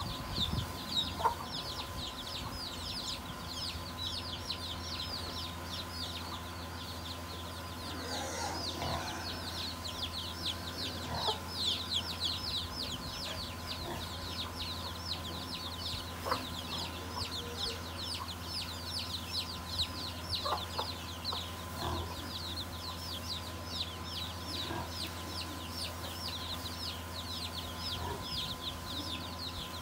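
Chicks peeping without pause in quick, high, falling chirps, several a second, while the mother hen clucks low a few times. A steady hum runs underneath.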